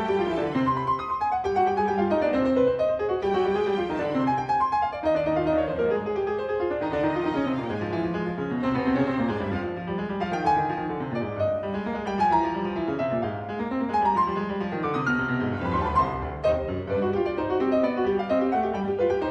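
Background classical piano music, with quick runs of notes rising and falling.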